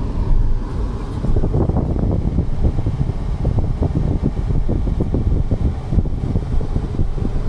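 Car on the move, heard from inside the cabin: a steady low rumble of engine and road noise.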